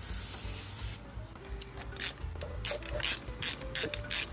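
A spray can hissing for about the first second, then a ratchet wrench clicking at about three to four clicks a second as the motorcycle's oil drain plug is tightened back in.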